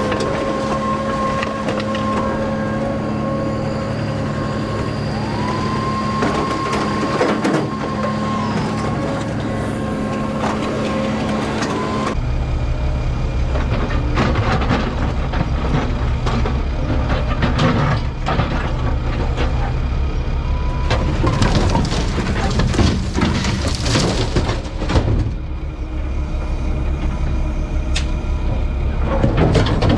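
Kubota KX080 excavator's diesel engine and hydraulics working while loading dirt and concrete rubble into a dump truck: a steady whine that rises and falls in pitch, then after an abrupt change a heavy rumble with repeated clunks and clatters of debris dropping into the truck bed.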